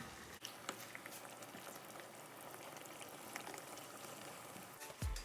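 Pan of chicken in tomato-sauce liquid bubbling and sizzling faintly on medium-high heat, with scattered small pops. Music with a low beat comes in at the very end.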